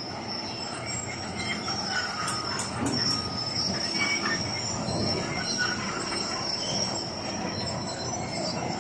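Heavy construction machinery on a busy site: a steady high-pitched metallic squeal over a low mechanical rumble, with a few clanks.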